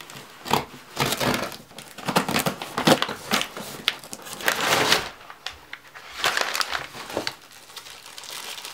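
Scissors cutting and tearing packing tape on a cardboard box, then the flaps being pulled open and brown packing paper crinkling: a run of irregular scrapes and crinkles, busiest in the first half.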